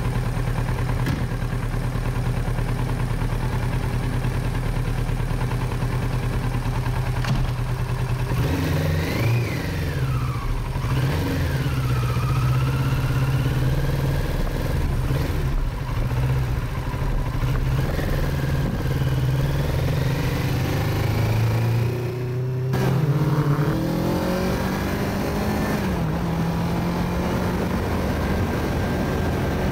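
Motorcycle engine running, heard from a camera mounted on the front of the bike. It is steady at first, then rises and falls in pitch as the bike pulls away about eight seconds in. It dips briefly a little past twenty seconds and then climbs again.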